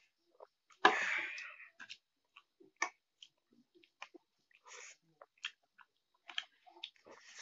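Close-miked eating: a loud sharp noise about a second in, fading over under a second, then scattered light clicks of a metal fork against a ceramic plate and soft chewing.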